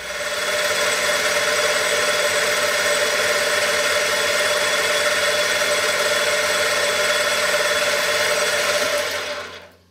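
Metal lathe running while a carbide tool turns down the end of an abrasive stick to true it up, the stick having worn unevenly from engine-turning passes. Steady and loud, fading in at the start and fading out near the end.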